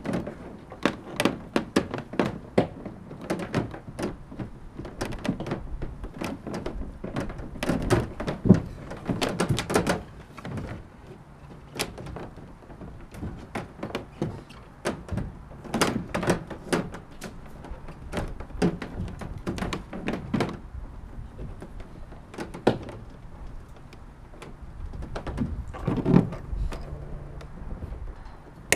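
Irregular knocks, taps and clatter of transducer cables, connectors and a washer being handled against a plastic kayak hull, coming in clusters with a couple of quieter stretches.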